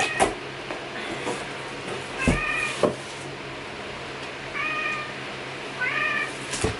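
A domestic cat meowing three times in short calls, with two sharp knocks in the middle.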